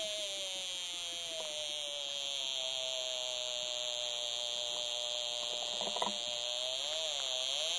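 Mini theremin sounding one continuous electronic tone that slides slowly down in pitch, then dips and rises again near the end as a cat's head moves close to its antenna. A small knock about six seconds in.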